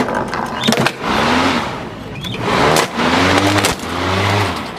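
Gas lawnmower engine running under load, with loud clattering and knocks as the blade hits something, most likely a toy being shredded. The engine pitch swells and falls twice.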